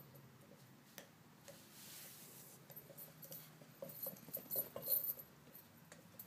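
Corgi puppy playing with her toys: light clicks and clinks, one about a second in, a short rustle around two seconds in, then a quick cluster of clinks about four to five seconds in, the loudest part.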